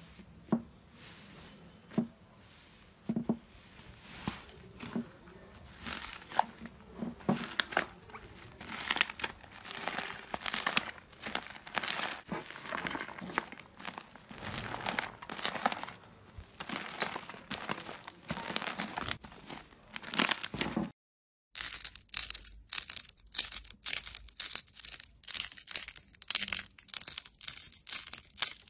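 Hands squishing and stretching thick slime, giving irregular sticky crackles and squelches. After a short silent break about 21 seconds in, another slime is pinched and pressed, with quicker, crisper crackles.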